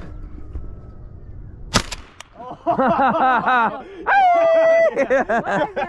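A single shotgun shot about two seconds in, followed by excited shouting and laughter with one long held whoop.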